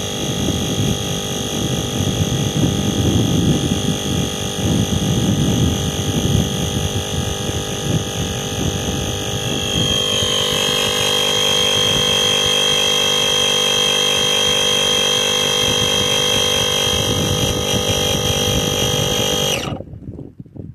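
Airbank Puffer Pro electric pump running steadily with a whine and rough rumble as it inflates a kite, working against pressure climbing from about 6.5 to 7.5 psi. About halfway the low rumble eases and a higher, steadier whine comes to the fore. The pump cuts off suddenly near the end.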